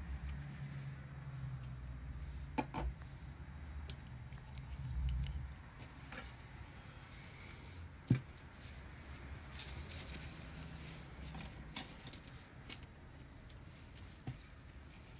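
Hands handling a paper towel on a desk, with scattered small clicks and taps; the sharpest comes about nine and a half seconds in. A low rumble runs through the first five seconds.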